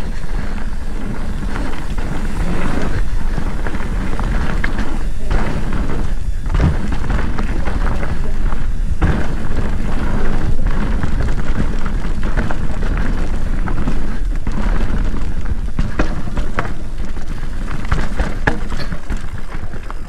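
Mountain bike riding fast down a dirt trail, heard from a camera on the bike or rider: steady wind rumble on the microphone over tyres rolling on dirt, with frequent clicks and rattles from the bike over bumps.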